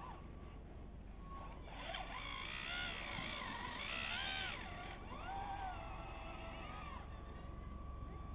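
Whine of an RC model excavator's electric drive, rising and falling in pitch as the machine works, loudest in the middle and ending in a steady high tone.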